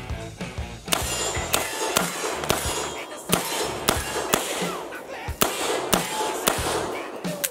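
MKE AP5M 9mm submachine gun, an MP5K clone, fired as a string of single shots at about two a second, starting about a second in.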